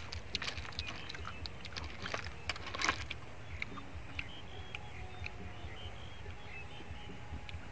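Steamed snail shells clicking and clacking as snails are picked from a pile and the meat is worked out with a toothpick: many sharp irregular clicks, a dense cluster about three seconds in, over a steady low rumble.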